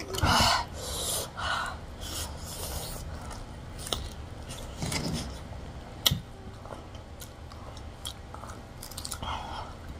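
Close-miked chewing and biting of food, irregular mouth sounds with a louder burst just after the start and a few sharp clicks.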